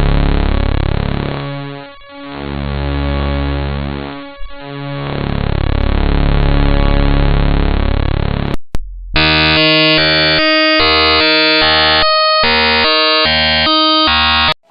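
Malware-generated bytebeat-style sound effect: a dense, buzzing electronic chord that swells and fades twice. After a couple of clicks it switches abruptly to harsh electronic tones jumping in pitch several times a second, then cuts off just before the end.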